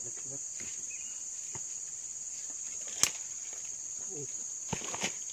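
Steady high-pitched chorus of insects. A single sharp click about three seconds in, and a few softer knocks and rustles near the end.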